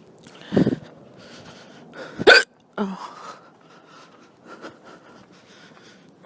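A woman hiccuping, with a loud hiccup about half a second in and the loudest, sharpest one about two seconds in, then fainter ones. They are drunken hiccups brought on by red wine.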